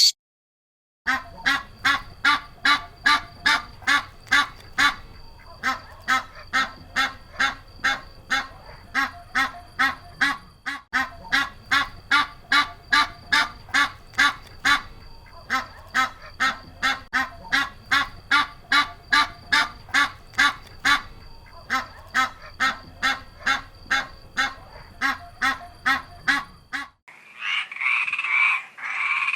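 An animal calling in a long, even series of pitched calls, about two a second, over a faint steady high tone. Near the end it cuts off and a different, denser run of croaking calls begins.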